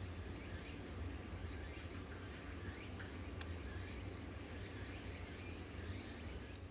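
Outdoor ambience of insects chirping in short, high, repeated pulses, about one or two a second, with faint rising chirps among them, over a steady low rumble.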